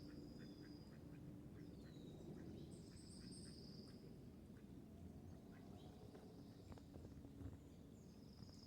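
Faint outdoor ambience of ducks quacking softly, with high thin whistled bird calls over it, one of them falling in pitch about two seconds in.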